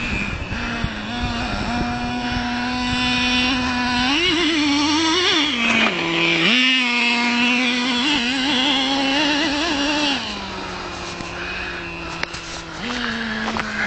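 Small single-cylinder nitro engine of a Traxxas T-Maxx RC monster truck running at high revs. The pitch wavers and rises about four seconds in, dips sharply around six and a half seconds, settles lower about ten seconds in, then picks up again near the end.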